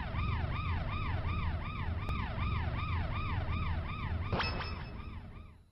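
Siren with a rapid rise-and-fall wail, about two and a half sweeps a second, over a steady low rumble. A metallic clang rings out about four and a half seconds in, and the siren fades away at the end.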